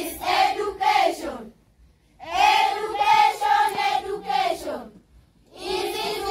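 Group of children singing together without accompaniment, in phrases of one to three seconds with short breaks between them.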